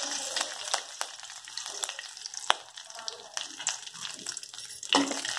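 Mustard seeds and curry leaves sizzling in hot oil in a kadhai, with a steady hiss and scattered sharp pops as the mustard seeds crackle. A louder burst of noise comes shortly before the end.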